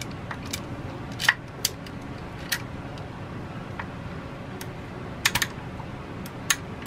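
Irregular sharp metallic clicks and clinks, about a dozen, of hand tools and a valve spring compressor working the valve springs and retainers on a Kohler K181 engine. Under them runs a steady low hum.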